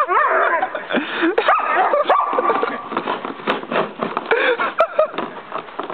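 German Shepherd puppy barking and yipping at a snow shovel. Her calls are mixed with repeated knocks and scrapes of the shovel blade on snowy paving as she bites at it.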